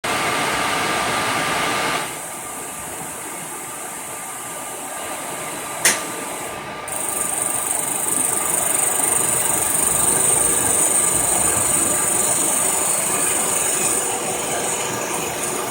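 Milling machine running a fly cutter across an intake manifold, a steady noisy hiss. It drops in level about two seconds in, gives one sharp click near six seconds, and a steady high whine sets in just after.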